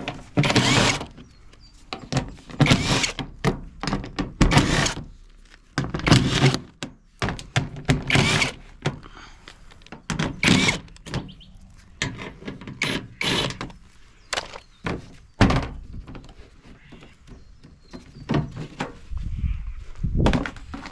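Irregular thunks and knocks from a washing machine's cabinet and panels being handled during teardown, with no motor running.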